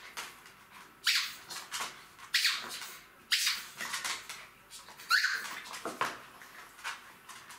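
Two Jack Russell Terrier puppies playing and leaping for a toy ball, with about five short, high squeaks roughly a second apart.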